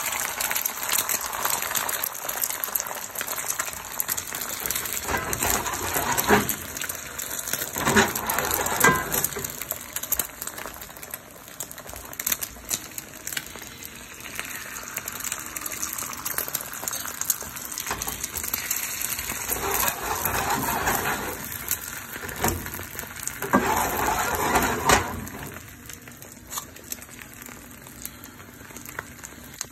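Beaten eggs frying in a nonstick pan, a steady sizzle, with several louder spells; the sizzle drops noticeably in level near the end.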